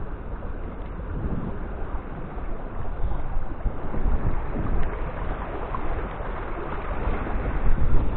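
Wind buffeting the microphone: a steady low rumble of gusts that grows louder near the end.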